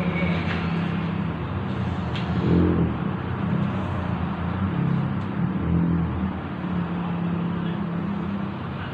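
A steady low mechanical hum, like a motor running, over a constant wash of noise.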